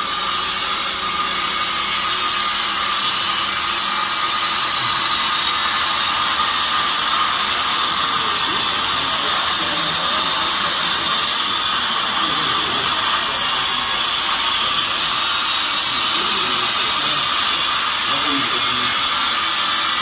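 Vertical fibre baler's motor and hydraulic pump running steadily: a loud, even machine whine with a couple of high, steady tones.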